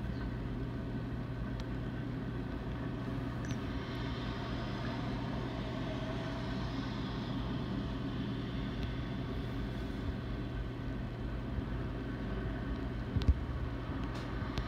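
BNSF manifest freight train rolling past unseen, a steady rumble of cars on the rails with a constant low hum. Two short sharp clicks near the end.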